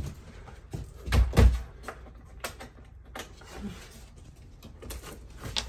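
Scattered knocks, clicks and clatter of hands and tools working on an RV's wooden interior panels, with two heavy thumps about a second in.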